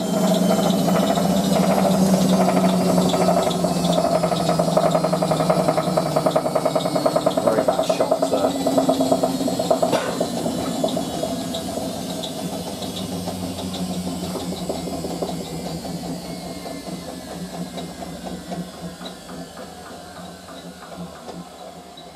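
Hotpoint 9530W front-loading washing machine running down from its final spin: the motor and drum whine falls steadily in pitch and fades. A few knocks come from the drum about eight and ten seconds in, knocking which the owner puts down to worn shock absorbers.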